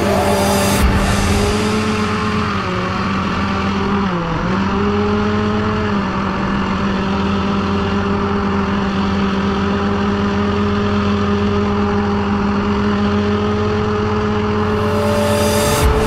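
Hovercraft engine running steadily at speed. Its pitch dips briefly twice, about two and a half and four seconds in, as the revs drop and recover.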